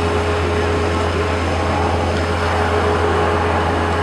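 Engine of a skid steer-type compact machine running steadily, with a steady low hum and a thin continuous whine above it.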